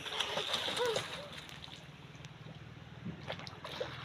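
River water running and sloshing, with faint voices in the first second.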